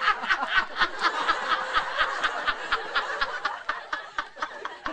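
A woman laughing hysterically in a rapid, staccato run of short bursts, about six a second.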